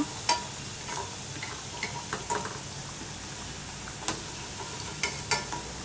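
Chana-cashew pakodas sizzling in hot oil in a steel kadai, fried to golden brown, as a perforated steel skimmer scoops them out. A few sharp clinks of the skimmer against the pan, shortly after the start, at about four seconds, and twice near the end.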